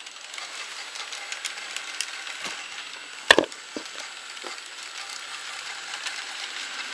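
Battery-powered NewRay RailRoadN N gauge toy train, the orange TGV, running on plastic track: a steady rattling whirr with a dense crackle of small clicks. One sharp clack comes about three seconds in, followed by two lighter ones.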